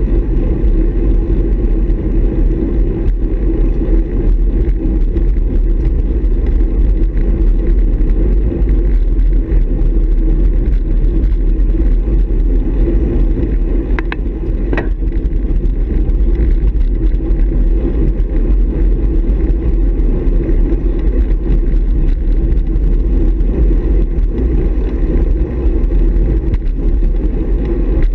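Steady low rumble of wind buffeting and road vibration picked up by a camera mounted on a road bike's handlebars while riding in a group of cyclists. A couple of short, sharp higher sounds about halfway through.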